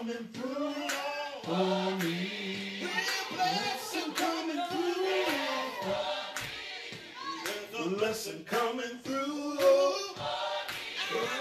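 Recorded gospel choir singing with music, with sharp beats at fairly regular intervals.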